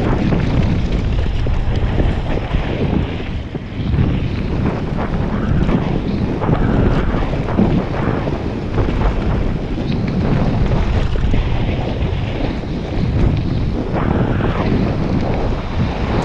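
Wind rushing over a helmet-mounted camera's microphone as a mountain bike descends at speed, with the tyres rumbling over dirt and gravel and the bike rattling over bumps.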